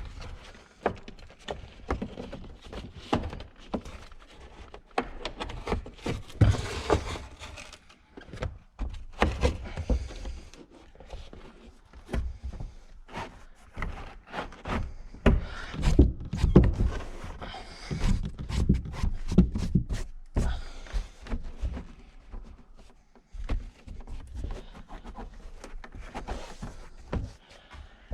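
Irregular knocks, clicks, thumps and rustles of parts and interior trim being handled and fitted inside a car, louder clusters of thumps coming and going.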